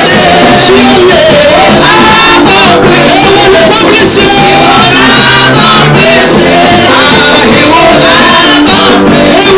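Live gospel praise music: a group of singers on microphones singing over drums and hand percussion, played loud through a PA.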